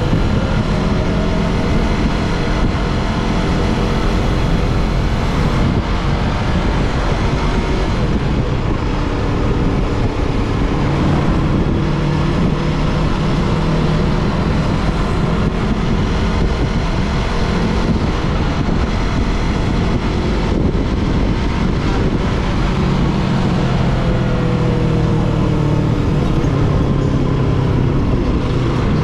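Yamaha R3 motorcycle's parallel-twin engine running steadily on the move, its pitch rising and falling slowly as the rider speeds up and eases off, over a heavy low rumble.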